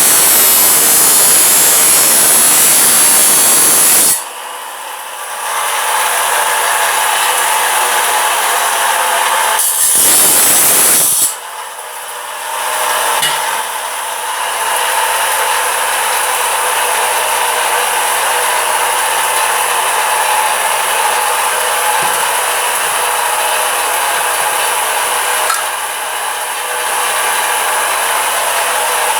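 A power tool works metal with a continuous grinding, rubbing noise. A loud hiss fills the first four seconds and returns briefly about ten seconds in; after each, the sound drops to a steadier grind.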